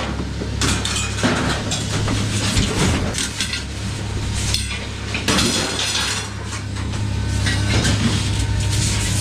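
Metal clinking and clanking in irregular knocks over a steady low hum.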